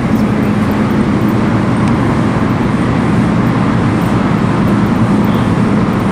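Interior noise of a London Elizabeth line Class 345 electric train in motion: a steady rumble with a low, even hum.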